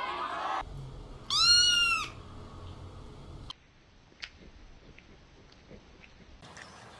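A cat meowing once, a single loud meow that rises and then falls in pitch, about a second and a half in.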